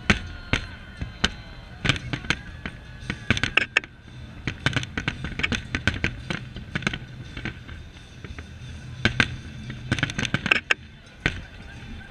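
Fireworks display: aerial shells bursting in a rapid, irregular string of sharp cracks and bangs over a low rumble, thinning briefly around four and eight seconds in and coming thick again just before ten seconds.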